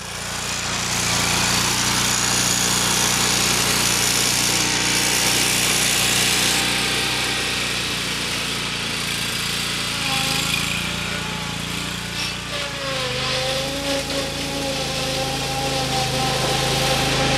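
Zero-turn riding mower's engine running steadily as the mower drives down a steep hill and back up. A whine sits over the engine note; it dips in pitch about twelve seconds in, then settles.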